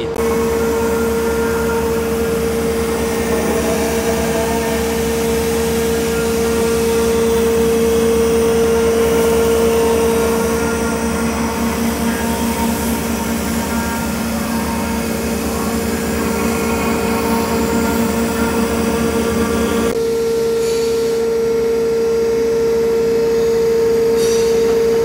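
CNC mill spindle running a 1/4-inch carbide end mill through the 3D finishing pass on a mahogany pattern: a steady high whine over a constant machine hum. About twenty seconds in, the sound changes abruptly.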